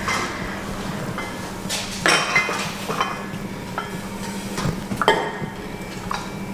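Café clatter: crockery, glasses and cutlery clinking and knocking now and then over a steady low hum.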